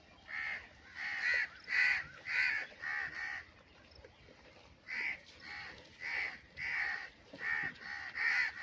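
An animal's short, pitched calls, repeated about twice a second, with a pause of about a second partway through before they start again.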